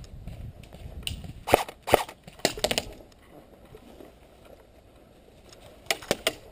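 Airsoft fire: sharp snapping cracks, first two single shots, then a quick cluster, and three more in quick succession near the end, with low rustling between them.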